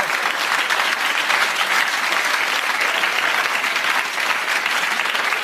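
Studio audience applauding, a steady, dense clapping.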